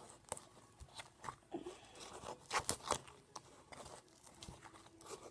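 Freshly activated glue slime being mixed: faint, irregular little clicks and sticky crackles as it is worked, a few each second.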